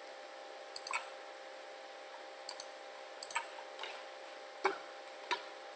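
Computer mouse clicking: about eight short, sharp clicks, some in quick pairs, spread across a few seconds over a faint steady hum.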